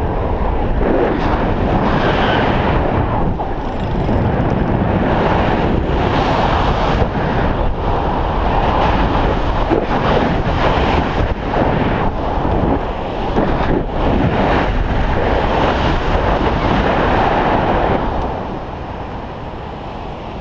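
Rushing wind from a paraglider's flight buffeting an action camera's microphone, surging and easing in gusts, with a few brief knocks; it drops somewhat near the end.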